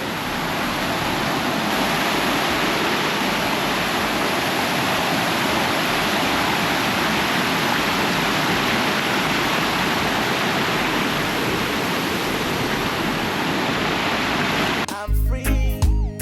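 Waterfall: a steady, even rush of falling water. Music with a beat cuts in near the end.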